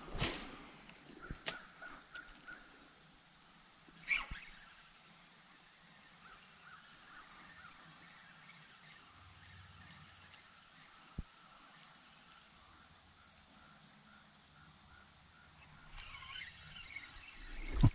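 Steady high-pitched drone of an insect chorus (crickets or katydids), with faint repeated chirping lower down and a few sharp clicks, the loudest near the end.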